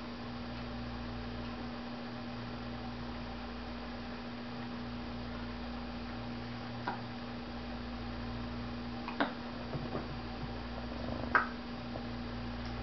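A small child hiccuping: three short hics about two seconds apart, starting about seven seconds in, the last the loudest, over a steady electrical hum.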